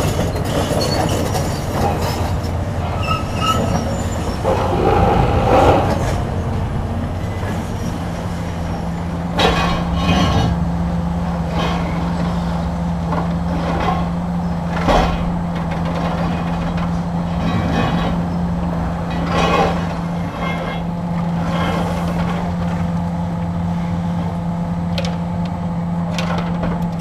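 Hydraulic demolition excavators' diesel engines running steadily. Several sharp cracks and crashes come as concrete is broken off a multi-storey concrete building frame.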